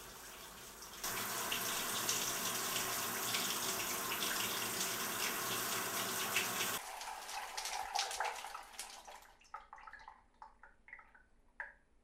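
Water running from a tap into a sink or basin, starting about a second in and shut off sharply around seven seconds in, followed by trickling and a few drips.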